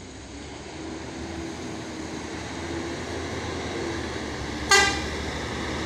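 Bus engine pulling up a steep climb, growing steadily louder as the bus comes nearer, with one short, loud horn toot about three-quarters of the way through.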